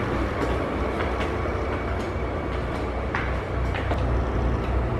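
A steady low rumble, with a few faint clicks and knocks over it.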